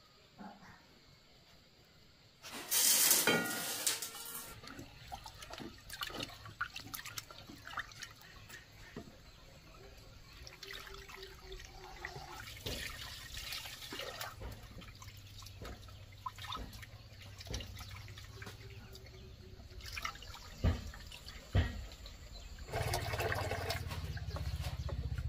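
Water splashing and running in bursts, with scattered knocks and clatter; the loudest burst comes about three seconds in and another long one near the end.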